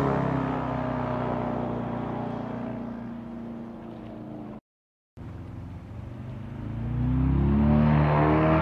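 Airboat engine and propeller running, dropping in pitch and fading over the first four and a half seconds. The sound cuts out for about half a second, then an airboat engine comes back in and revs up, rising in pitch and loudness.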